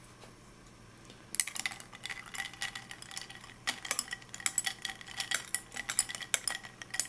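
Small metal spoon stirring ice cubes in a glass of water, a rapid run of clinks against the ice and glass with a faint glassy ring, starting about a second in.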